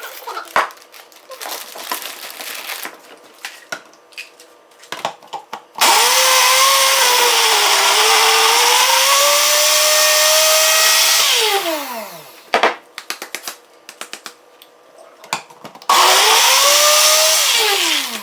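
Blender grinding jalapeño Cheetos into crumbs in two runs: a long one of about five seconds, its motor pitch dipping then rising, and a shorter one near the end. Each run ends with the motor winding down in a falling whine, with light clatter between the runs.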